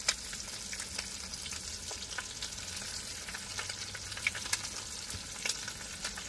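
Eggs frying in a pan of spiced masala, a steady sizzle, with a few sharp clicks of a spatula against the pan as it is stirred.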